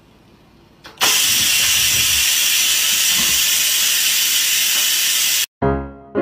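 Electric pressure rice cooker venting steam: a loud, steady hiss that starts suddenly about a second in and cuts off sharply near the end.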